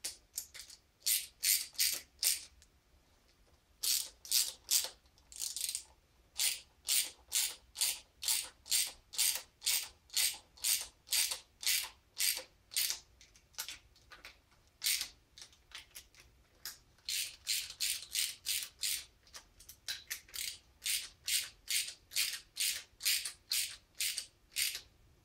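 Socket ratchet clicking in quick back-swings, about two strokes a second with a few short pauses, as cylinder head bolts are run down into the block before final torquing.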